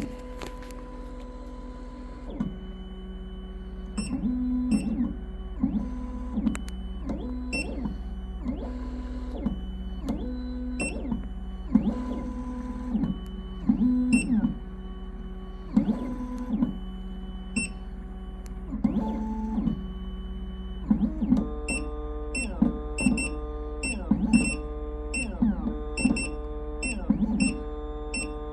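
Background music with guitar-like notes in a repeating pattern, growing busier about two-thirds of the way through, over a steady low hum.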